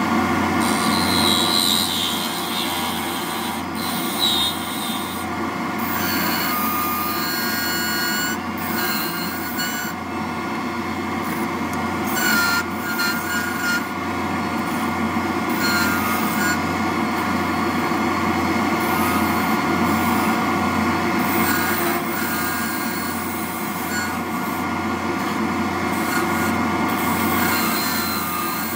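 Mini wood lathe running with a steady motor hum while a hand-held tool scrapes and cuts a spinning ebonite rod, turning it down to diameter; the cut gives short high-pitched squeals now and then.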